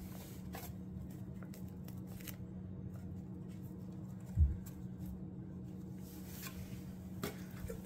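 Quiet handling noise while a metal can is held down on a nylon tent: faint clicks and light rustles over a steady low hum, with one dull thump about four seconds in.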